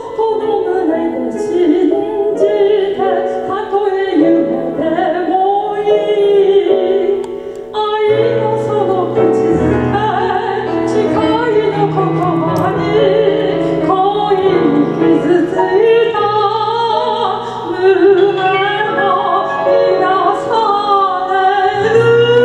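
A woman singing a chanson into a microphone with grand piano accompaniment, her voice wavering on held notes; deeper piano notes join about eight seconds in.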